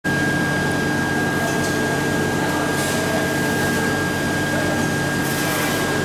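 Steady rush of forced air from a foundry pit furnace's blower, with a low hum and a constant thin high whine.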